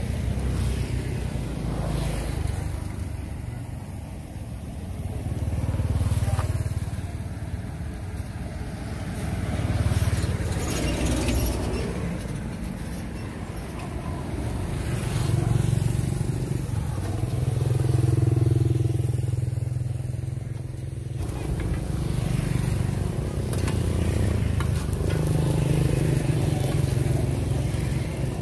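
Motorbikes passing one after another on a busy street, their engine hum swelling and fading every few seconds over steady street noise.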